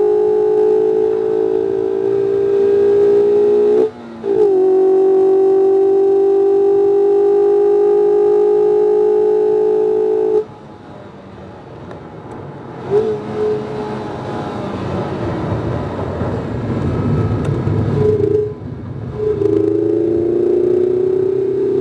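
A 2019 Mazda MX-5 RF's 2.0-litre four-cylinder engine pulling hard at a nearly steady pitch, with a brief break about four seconds in. It cuts off about ten seconds in, leaving tyre and road noise with a couple of short engine blips. Near the end the engine comes back on with a rising note as it accelerates again.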